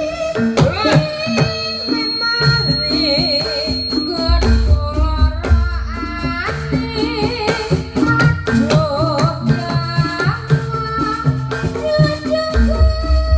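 Javanese folk accompaniment music for a barongan dance: hand drums, a wavering melodic line that sounds like singing, and a deep bass beat that drops out and returns.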